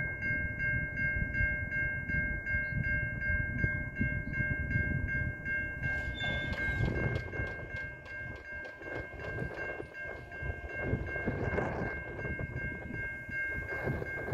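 Locomotive's Nathan P5 five-chime air horn, newly cast, sounding one long held chord that starts suddenly. From about six seconds in, the train's rumble and wheel clatter build up under the horn as it passes.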